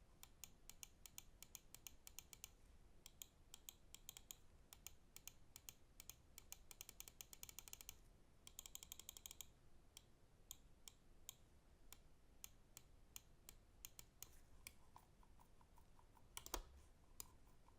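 Pulsar X2V2 gaming mouse buttons clicking: fast runs of rapid clicks in the first half, then slower single clicks. A louder knock comes near the end.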